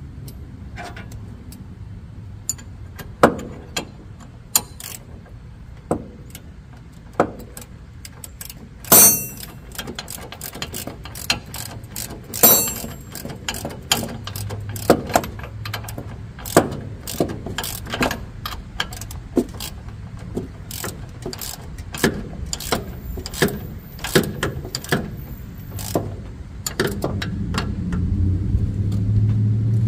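Ratchet wrench clicking in short irregular runs while tightening the front caster wheel bolt of a zero-turn mower, with a couple of sharp ringing metal clinks from tools. A low rumble builds near the end.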